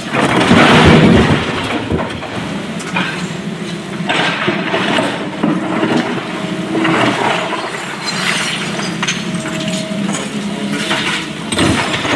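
Broken stone crashing and rattling into the steel tipper body of a Tata Prima truck as the SANY excavator's bucket dumps its load in the first second or so. Rocks clatter again as the bucket digs into the pile, over the excavator's steady diesel engine, and another load starts crashing in near the end.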